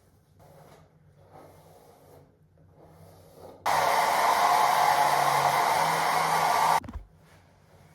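Faint rustling, then a loud, steady rush of air-like noise that starts suddenly about three and a half seconds in and cuts off abruptly about three seconds later.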